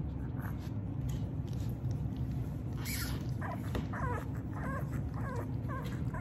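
Three-week-old puppy whimpering: a string of about seven short, high, squeaky cries in quick succession, starting about halfway through.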